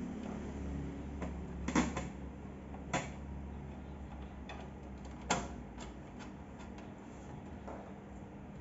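Hard parts of a belt sander clicking and knocking as they are handled and fitted together during assembly: scattered light clicks with three louder knocks, over a low steady hum that fades about six seconds in.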